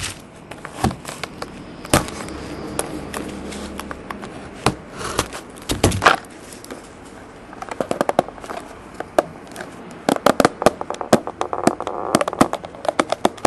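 Hands opening a cardboard trading-card box and its crinkly wrapper: scattered sharp crackles and clicks of cardboard and wrapper, thickening into a dense run of crackling over the last few seconds.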